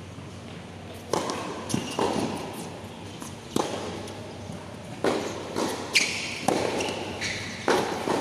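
Tennis rally: racket strikes on the ball and ball bounces on a hard court, sharp hits about a second apart that echo in a large roofed hall. A few short high squeaks of shoes on the court come in the second half.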